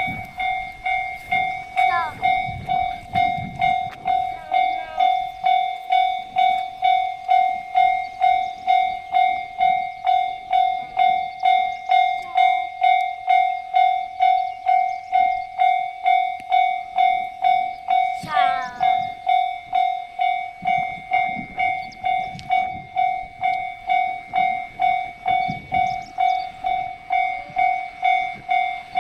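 Japanese railway level crossing's electronic warning bell ringing on and on, an even ding-ding repeating a little under twice a second.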